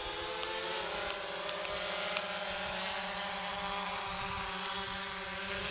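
DJI Phantom 2 Vision quadcopter's four motors and propellers buzzing steadily as it hovers low.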